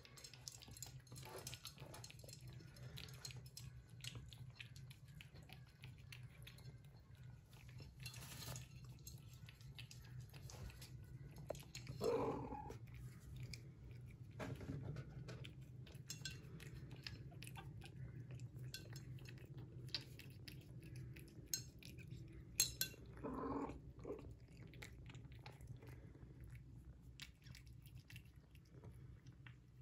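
Cats crunching dry kibble, a run of faint small crunches, with a cat meowing twice: about twelve seconds in and again around twenty-three seconds. A single sharp tap comes just before the second meow.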